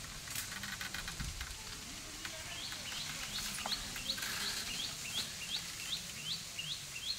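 A bird calling in a steady series of short, rising chirps, about three a second, starting about two seconds in. Faint rustling and clicks in the first second or so.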